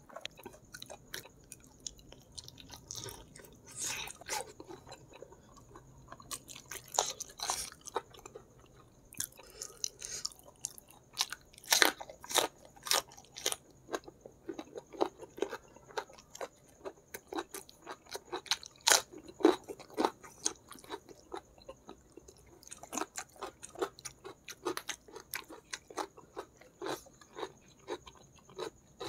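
Close-miked eating of spicy chicken feet: irregular wet smacks, bites and crunches of chewing, sparse at first and coming thick and fast through the middle and again near the end.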